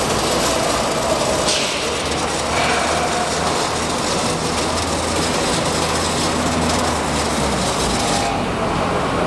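Robotic welding cell running: steady mechanical noise with a high hiss that cuts off about eight seconds in.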